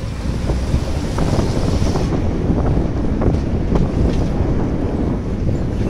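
Wind buffeting the microphone of a phone riding in a moving car, an uneven rumble over the car's engine and road noise.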